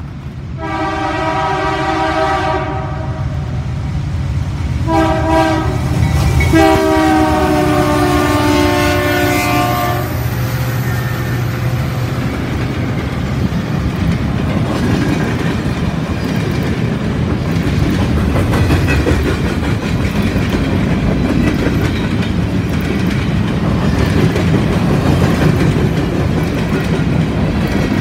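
CN freight train: the diesel locomotive's horn blows a long blast, a short one, then a longer one of about three and a half seconds for the level crossing. Then the locomotives and covered hopper cars roll past, their wheels clacking over the rail joints under a steady rumble.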